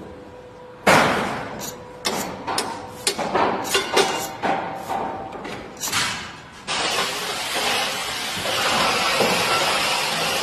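A run of sharp knocks and clatters over the first six seconds or so. Then, about two-thirds of the way in, the steady noise of a handheld electric grinder cutting into a plaster wall starts suddenly.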